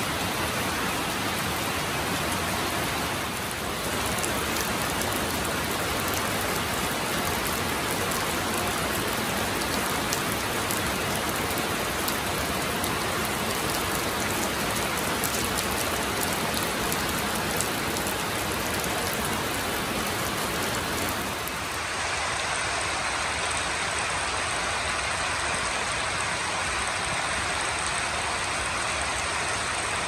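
Steady rain falling, an even, continuous hiss. About three-quarters of the way through, its character shifts to a thinner sound with less low rumble.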